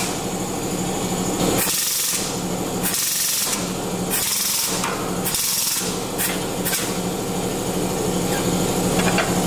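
Steady mechanical hum, with short hissing bursts recurring roughly once a second.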